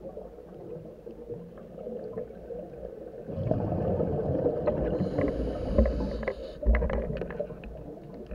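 Scuba diver breathing through a regulator, heard muffled through the action camera's waterproof housing. A low underwater rumble swells a little under halfway, a hiss of inhalation follows, then a burst of exhaled bubbles crackles near the end.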